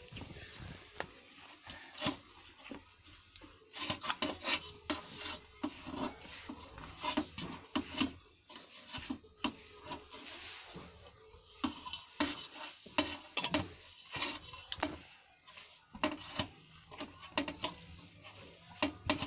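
Hand kneading and mashing a soft mawa and maida dough in a steel paraat: irregular rubbing and pressing with many short knocks against the metal plate.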